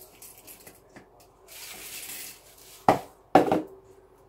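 Manual pull-cord food processor loaded with cornflakes being handled: a soft rustle, then two sharp plastic clatters about half a second apart near the end.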